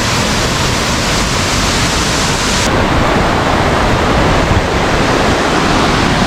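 Large waterfall rushing loudly and steadily, in full flow after rain. The highest hiss drops away abruptly a little under halfway through.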